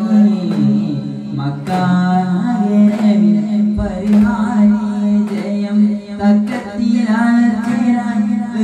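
Daff Muttu performance: chant-like devotional singing over a steady held low note, with sharp beats of daf frame drums struck every second or so.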